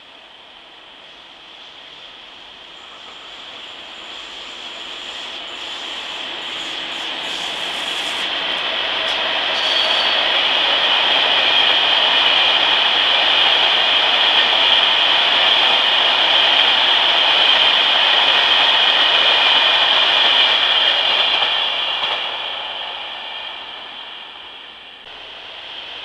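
A train passing by: a rushing rail noise that builds over about ten seconds, holds loud for about ten more, then fades away. Near the end a second rising rush begins.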